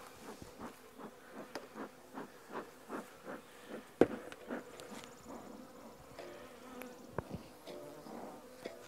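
Honey bees buzzing around the hives in a steady hum. It is broken by a quick run of soft strokes, about three a second, over the first few seconds, and by a sharp clack from the metal bee smoker being handled about four seconds in.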